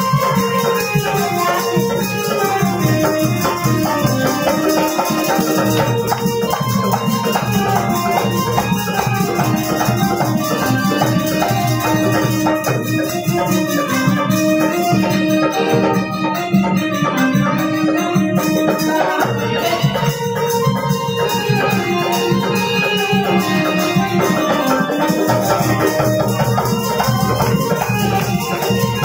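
Live Indian folk devotional music: a dholak drum and jingling, rattling hand percussion keep a fast, steady rhythm under a held, stepping melody.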